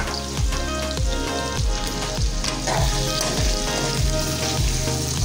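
Mutton sizzling in hot oil in a karahi as it is stirred for bhuna, under background music with a steady drum beat.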